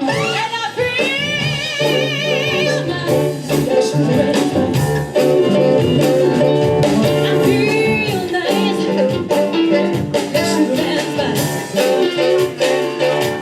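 Live soul band with a singer performing a Motown-style number; the singer holds notes with a wide vibrato over the band.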